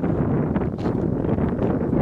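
Wind blowing across the microphone, a steady low noise.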